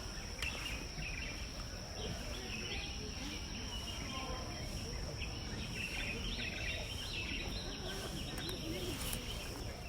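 Outdoor ambience: a steady high-pitched buzzing drone with scattered small bird chirps over a low rumble.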